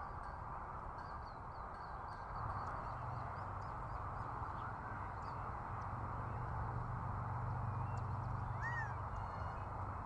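A steady low rumble, with a deeper hum setting in a couple of seconds in, under faint high chirps of small birds. Near the end comes one short nasal call, from the male Gambel's quail.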